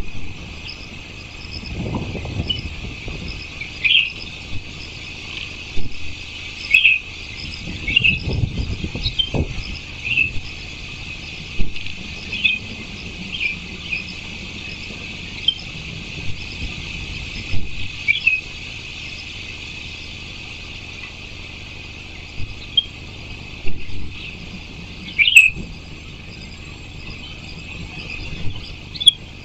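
Steady chorus of insects chirring, with birds chirping now and then over it. A low rumble comes twice, early on and about a third of the way through.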